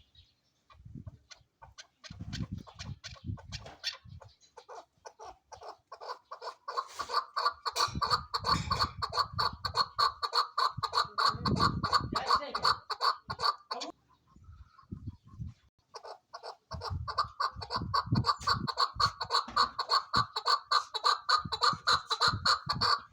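Chukar partridge calling: long runs of rapid clucking notes, several a second, growing louder. The calling breaks off for about two seconds after the middle, then starts again.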